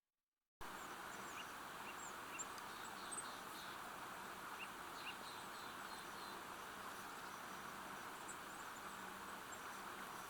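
Small songbirds giving short, high, thin call notes, scattered and irregular, over a steady outdoor hiss; the sound cuts in abruptly after a moment of silence.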